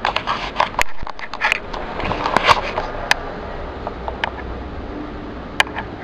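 Handling noise from a handheld camera being moved about: irregular rustling, scraping and small knocks against the microphone.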